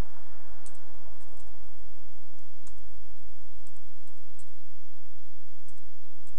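Computer keyboard keystrokes: about ten irregular, sharp clicks, some in quick pairs, over a steady low hum.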